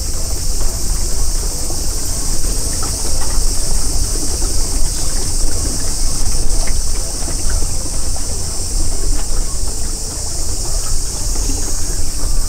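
Wind rumbling and buffeting on the microphone, with a steady high-pitched insect chorus over it.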